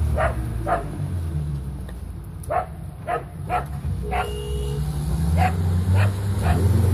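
A dog barking repeatedly in short, sharp barks, in small groups of two or three, over an off-road vehicle's engine running steadily. The engine picks up revs near the end.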